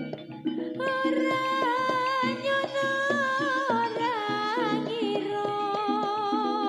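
Live Javanese jaranan band music playing a langgam: steady hand-drum beats and struck melodic notes, with a long, wavering melody line that comes in about a second in and bends and ornaments its notes.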